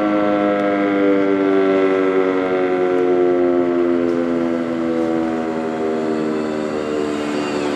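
Sentry 10V mechanical fire siren winding down after its noon test, its pitch falling slowly and steadily as the rotor loses speed.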